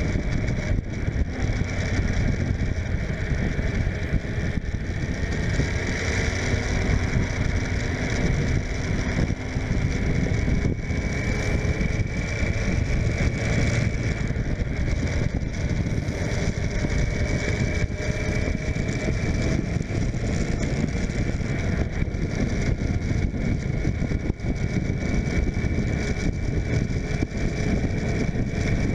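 Suzuki GSF600 Bandit's inline-four engine running under way, its pitch drifting gently up and down with the throttle, under steady wind noise on the microphone.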